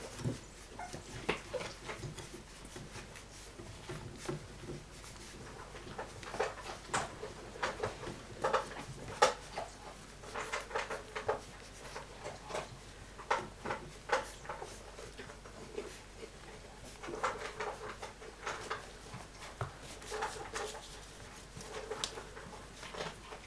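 Twelve-day-old flat-coated retriever puppies giving many short squeaks and whimpers as they crawl over one another, the loudest about nine seconds in.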